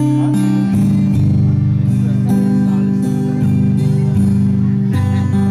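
Amplified acoustic guitar strumming chords through a PA system, the instrumental intro of a song before the vocals come in.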